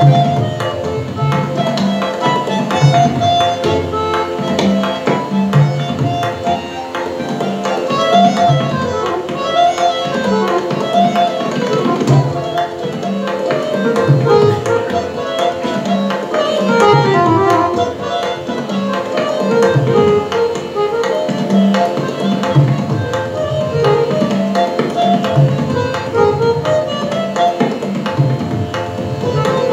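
Harmonium playing a flowing melody with tabla accompaniment, the tabla's deep bass drum strokes and sharper treble strokes keeping a steady cycle under it.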